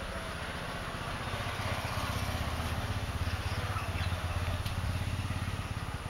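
An engine running, heard as a low pulsing hum that grows louder over the first few seconds and eases off near the end.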